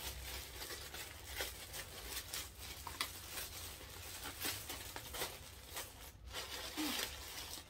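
Grey plastic courier mailer bag being torn open and handled, giving irregular tearing and crinkling rustles.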